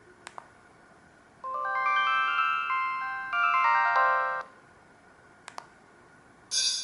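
Samsung SGH-D780 mobile phone playing one of its built-in ringtones through its speaker: a short melody of quick electronic notes climbing in two runs, set between single clicks, with a louder tone starting just before the end.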